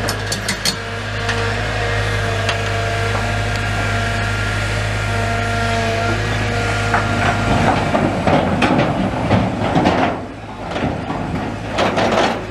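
Heavy diesel demolition machinery running with a steady low drone, with scattered clanks and knocks of rubble being dug and scooped, busiest near the end.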